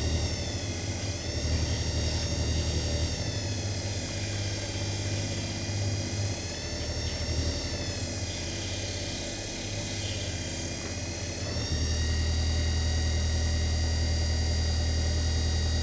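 Electric motor of a desktop leather edge burnishing machine running with a steady hum and whine. Its pitch sags and recovers several times as the belt is loaded with work, then it runs evenly for the last few seconds.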